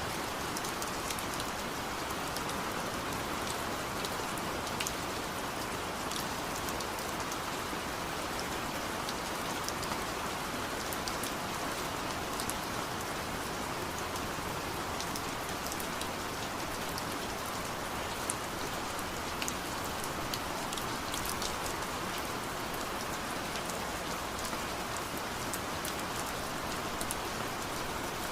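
Steady rain falling, an even hiss with many separate drops ticking on a surface.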